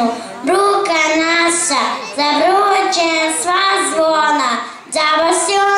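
A young child singing solo through a microphone, in a few held phrases that glide up and down, with short breaks between them.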